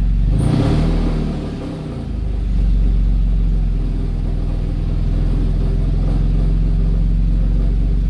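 Toyota Camry 3.5-litre V6 running, heard inside the cabin. About half a second in the engine surges briefly, then falls in pitch and sags before settling back to a steady run. The engine is down on power with no big misfire, which the mechanic puts down to diesel in the fuel tank.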